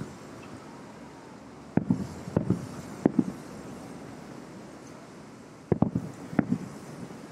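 Distant aerial firework shells bursting: three booms about two seconds in and another three near the end, each trailing off in a low rumble, over a steady hiss of air.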